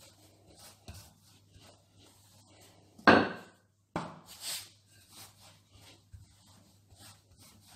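Wooden rolling pin rolling out dough on a granite countertop: soft rubbing with light knocks, and one brief louder scuffing sound about three seconds in.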